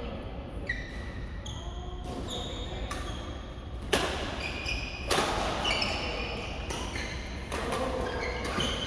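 Badminton rallies: sharp cracks of rackets striking the shuttlecock, the loudest about four seconds in and again a second later, among brief high squeaks of court shoes on the mats.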